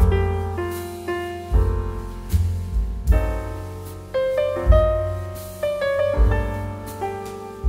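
Background piano music: struck notes that fade away over low bass notes recurring every second or so.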